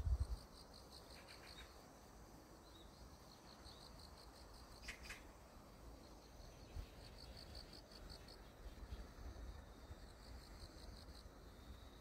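Faint, high-pitched insect chirring in repeated pulsed trills over a low rumble, with a single click about five seconds in.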